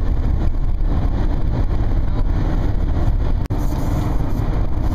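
Steady low road rumble inside a moving car at highway speed: engine, tyre and wind noise, with no horn sounding. It cuts out for an instant about three and a half seconds in.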